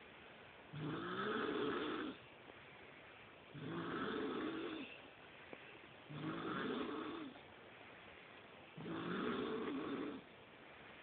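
A person snoring: four drawn-out snores, each about a second long, coming about every two and a half seconds with quiet pauses between.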